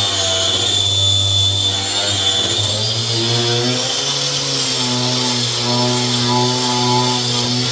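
A hand-held electric power tool, used for sanding back car body panels, running steadily with a high whine. Its pitch steps up a little about four seconds in.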